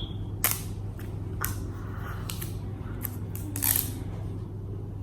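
Packaging being worked open by hand: a handful of short, sharp crinkles and clicks at irregular moments, the loudest about half a second in and near the end, over a steady low hum.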